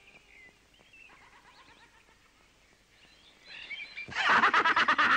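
Faint birds chirping, then about four seconds in a loud, shrill voice breaks in.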